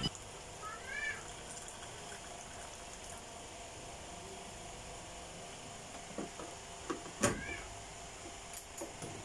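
A cat meows twice, a short rising-and-falling call about a second in and another near seven seconds. Around the second meow there are a few light knocks, the loudest a sharp click, as the electric kettle is set back on its base.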